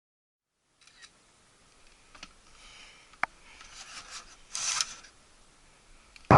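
Handling noise: soft rustling and rubbing with a few sharp clicks and a brief scrape about halfway through, then one loud click near the end.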